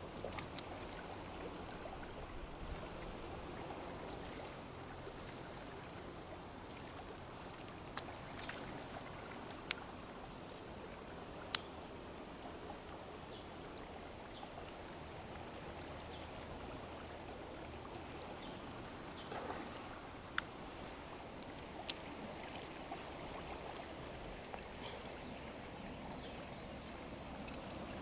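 Steady wash of rain and flowing river water, with a handful of sharp ticks scattered through it, the loudest about halfway.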